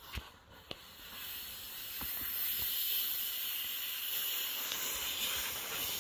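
Plastic Otter Sport sled sliding down a snow hill, a steady hiss of the sled's hull over the snow that grows louder as it comes closer. Two short knocks come just before the hiss begins.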